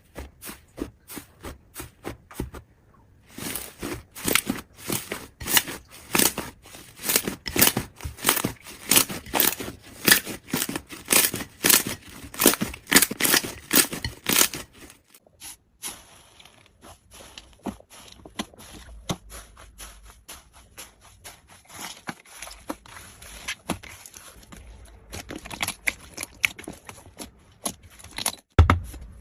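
Slime being squished and pressed by hand, making a quick run of sharp clicking pops through the first half, then softer crackling for the rest.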